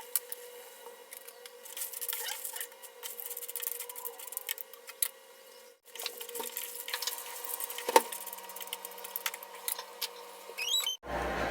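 Kitchen cooking sounds: scattered clicks and taps of a utensil and food moving in a pan, over a faint steady hum. The sound breaks off abruptly twice.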